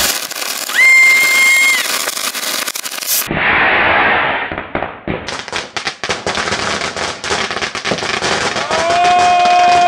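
Fireworks going off: a short whistle in the first two seconds, a hissing spark fountain, then rapid crackling and bangs, with a long steady whistle starting near the end.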